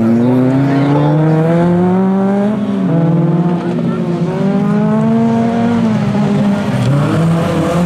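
Autocross race cars' engines revving hard on a dirt track, the pitch climbing through each gear and dropping sharply at upshifts, about three seconds in and again near six and seven seconds.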